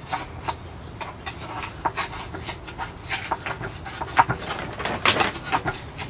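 A hand tool scraping through packed soil and roots along the inside wall of a bonsai pot in short, irregular strokes, loosening the root ball so the tree can be lifted out. The strokes come a few a second and are loudest about five seconds in.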